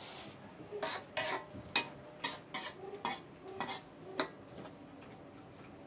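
A metal spatula knocks and scrapes against a wok as cassava leaves with sardines are stirred: a string of irregular sharp clicks, with the loudest knock just under two seconds in.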